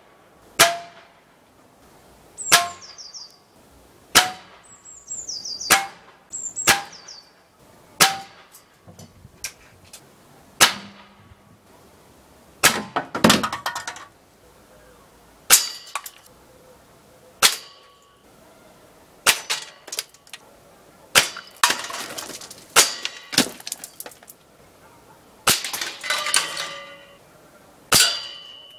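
A string of shots from a Gamo Shadow 1000 .22 break-barrel spring-piston air rifle, with pellets striking tin cans. Each sharp crack comes every second or two, some in quick clusters, and many are followed by a metallic clang or a short ring from the struck can.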